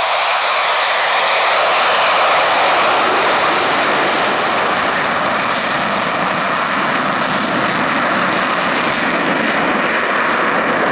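Jet engine noise from Blue Angels F/A-18 Super Hornets in flight: a loud, steady rush, with a deeper rumble building a few seconds in.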